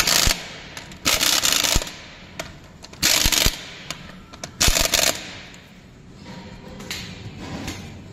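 Impact wrench hammering wheel lug nuts tight in four short bursts, each well under a second, with pauses between as it moves from nut to nut.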